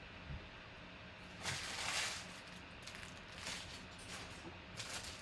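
Crinkling rustle of empty trading-card pack wrappers being handled and cleared off a table: one longer rustle about a second and a half in, then a few short ones.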